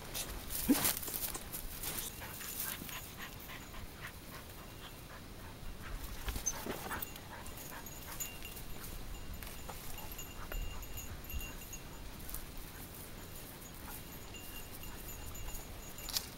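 Dogs panting and whining close by, with loud rustling and knocks in the first few seconds.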